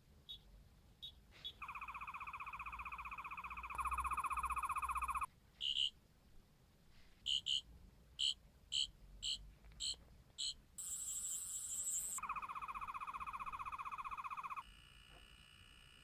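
Tenth Doctor sonic screwdriver universal remote by The Wand Company playing its built-in sound effects in FX mode: the warbling sonic buzz for a few seconds, then a run of short chirps, a brief very high-pitched whine, and the buzz again.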